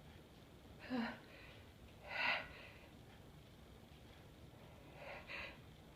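A person's breathy hitching inhalations building toward a sneeze: a short catch about a second in, a louder breath just after two seconds, then two quick ones close together near the end.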